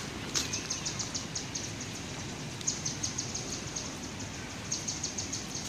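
Insects chirping in trains of fast, even high pulses that stop and start again every second or so, over a steady low outdoor hum, with one short high chirp near the start.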